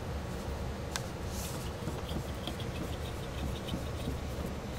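Light clicks and small ticks of a plastic cup die being handled and set on the lower post of a Mitutoyo crystal press, with one sharper click about a second in, over a steady low hum.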